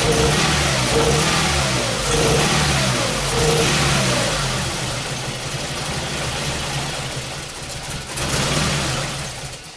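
2001 Ford Focus Zetec four-cylinder engine running roughly with a misfire, its speed rising and falling about once a second, then fading and dying near the end.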